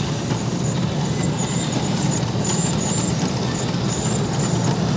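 Steady loud mechanical rumble of running laundromat machines, with a faint high whine coming and going.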